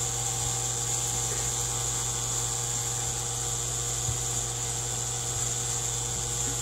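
Steady background drone: a low, even hum with a high, steady hiss above it, unchanging throughout.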